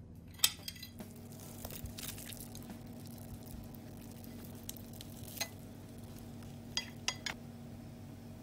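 Metal cutlery (a fork and cake server) tapping and scraping on a ceramic plate in a few sharp clinks, the loudest about half a second in and a quick cluster near the end, over a steady faint hiss and low hum.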